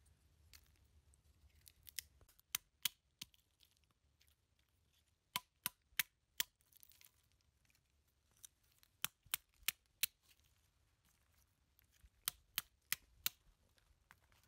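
Walnut shells cracking and snapping as they are broken apart by hand to free the kernels: sharp dry cracks coming in four quick runs of three to five.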